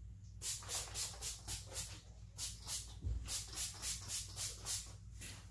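Rapid repeated spritzes of a Color Wow Dream Coat spray bottle misting onto sections of wet hair, about four sprays a second in two runs with a short break around two seconds in.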